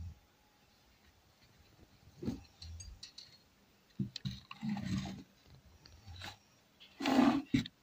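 Faint handling noise: scattered light scrapes, rustles and clicks, with a louder brushing rustle about seven seconds in.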